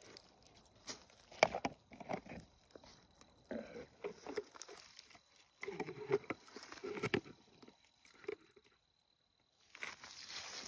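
Scattered clicks and short scrapes of a rubber-tapping knife and a latex cup being handled at the tree trunk. The sound cuts out for under a second near the end, then a steady hiss comes in.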